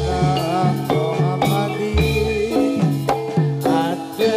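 Javanese gamelan music accompanying a jathilan trance dance: kendang drum strokes with deep low hits, under a melody of pitched gamelan notes.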